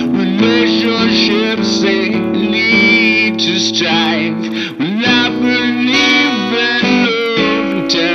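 Guitar band song: guitar music with a lead line bending in pitch over held chords.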